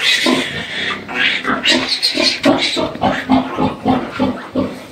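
Piglet squealing shrilly while being held for teeth clipping, followed by a fast run of short pig grunts, about four a second.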